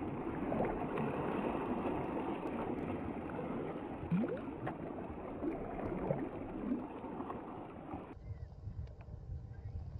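Sea water splashing and sloshing around a kayak's bow, with bluefin tuna breaking the surface close by. About eight seconds in the splashing drops back to a lower rumble.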